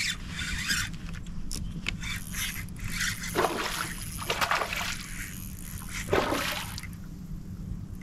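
Water sloshing and splashing at the side of a kayak as a hooked fish is fought close to the boat, with three louder splashes in the second half.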